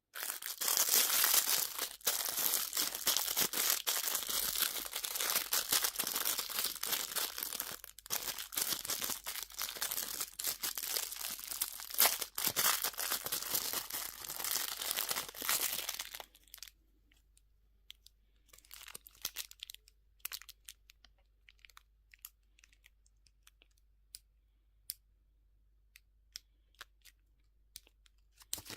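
Candy wrapper being torn open and crinkled by hand: dense crackling for about sixteen seconds, then only scattered soft crinkles and clicks.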